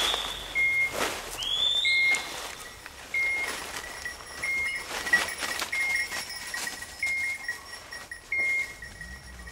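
A hunting dog's beeper collar sounding a short high beep about every 1.3 seconds, with two rising whistle-like tones in the first two seconds and scattered rustles and clicks.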